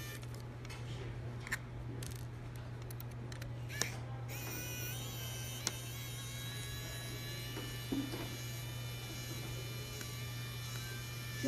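Small electric precision screwdriver with a pentalobe bit running, backing screws out of a drone gimbal's metal plate: a steady motor whine from about four seconds in, with a few light clicks of the bit on the screws, over a steady low hum.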